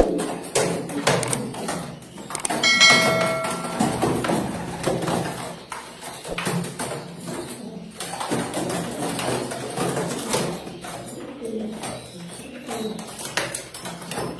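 Domestic pigeons cooing, with repeated low coos and scattered sharp clicks.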